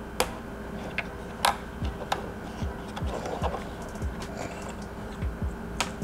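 Irregular small clicks and taps of wire connectors being pushed onto a vacuum cleaner's switch terminals and handled against its plastic housing. The sharpest clicks come about a second and a half in and near the end.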